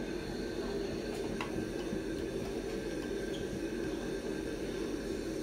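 Steady low rushing background noise, with one faint click about one and a half seconds in.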